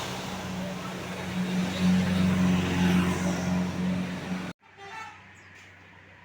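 Tour bus driving past close by, its engine a loud steady drone that swells in the middle, then the sound cuts off abruptly about four and a half seconds in, leaving only a faint background.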